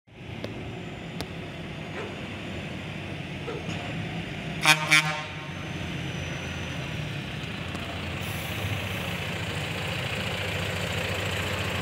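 Tractor towing two grain trailers approaching, its engine running steadily and growing louder as it nears; about five seconds in its horn gives two short toots.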